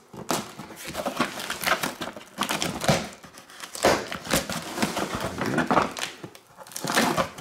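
Cardboard shipping box being opened by hand: packing tape slit and torn, and the flaps crinkling and scraping as they are pulled back, in irregular bursts with several sharp rips.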